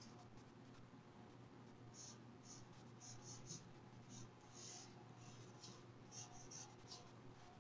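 Wooden pencil scratching on paper in a series of short, faint strokes, starting about two seconds in.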